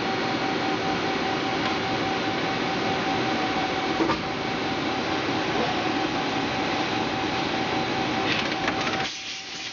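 2012 Yama Seiki GTS-150 CNC lathe running, a steady mechanical hum with a steady whine over it. There is a single click about four seconds in, and the sound drops away briefly near the end.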